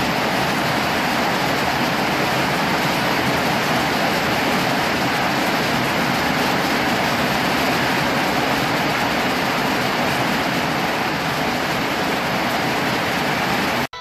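Heavy rain and strong wind beating steadily under a corrugated metal veranda roof, an even rushing noise that cuts off abruptly near the end.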